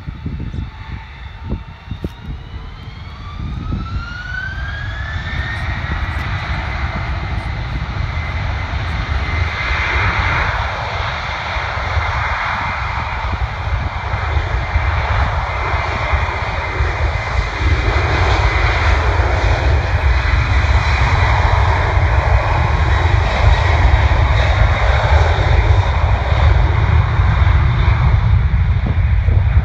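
Qantas twin-engine jet airliner spooling up to takeoff thrust: a whine rises in pitch over the first few seconds, then settles into a loud, steady jet roar with deep rumble, growing louder as the aircraft begins its takeoff roll.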